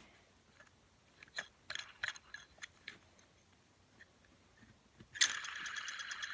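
Scattered light clicks of small toys being handled, then about five seconds in a fidget spinner suddenly starts spinning, its bearing giving a steady whirr with fast even ticking.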